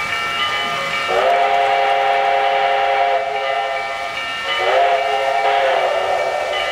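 O-gauge model steam locomotive's whistle blowing twice: one long blast starting about a second in, then a second blast about four and a half seconds in.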